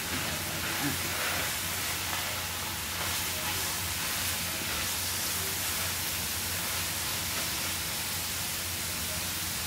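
Grated zucchini ribbons sizzling in butter in an electric skillet, a steady hiss, while they are tossed with a silicone spatula.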